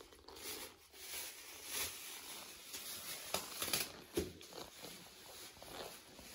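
Quiet room noise with soft rustling and a few light taps and knocks, the strongest a little past the middle.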